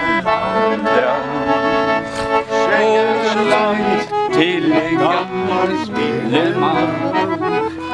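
Accordion playing a folk dance tune, with steady held chords and notes throughout.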